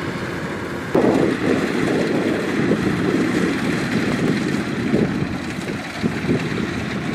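Kubota DC-105X combine harvester running steadily as it cuts standing rice: its diesel engine and machinery make a continuous mechanical din. The din steps up in loudness about a second in.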